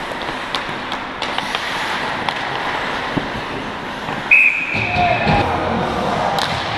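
Referee's whistle blown once, a single steady shrill tone about a second long, about four seconds in, stopping play. Around it, skates scraping the ice and sticks and puck clacking, with voices calling out just after the whistle.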